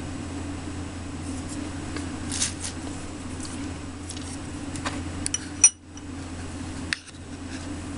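Light clicks and taps from small plastic dishes and a toothpick being handled, a handful of them spread across the few seconds, the sharpest a little past halfway, over a steady low hum.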